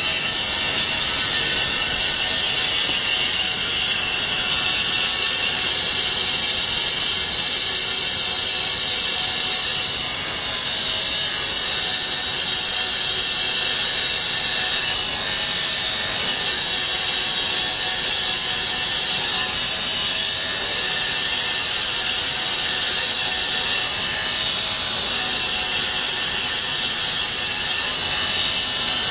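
Vertical band-knife foam cutting machine running and slicing a block of foam, a steady high-pitched hiss that stays unchanged throughout.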